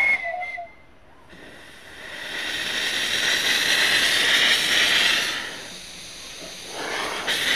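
Miniature steam locomotive: a steady two-note steam whistle ends about half a second in, then steam hisses loudly from low on the engine, building over a couple of seconds and easing off after about five seconds. A few sharper bursts of steam come near the end.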